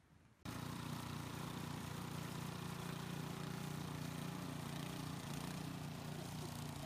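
Walk-behind snowblower engine running steadily as it clears and throws snow, starting abruptly about half a second in.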